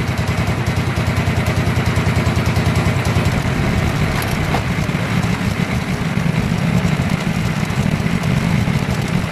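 Predator 212 Ghost single-cylinder four-stroke kart engine idling steadily, a fast even pulsing with no change in speed.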